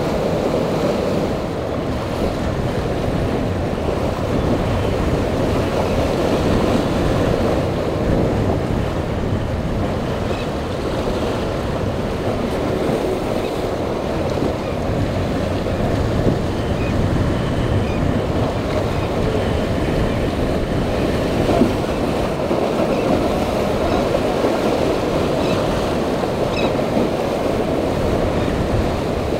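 Choppy sea with waves breaking, and wind noise on the microphone, as outboard-powered boats run through the rough water. A steady, fairly loud rush, mostly low in pitch, without any clear engine tone standing out.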